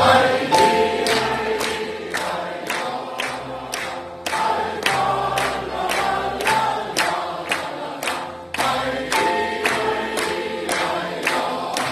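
A choir singing together to a steady, sharp beat of about two strokes a second.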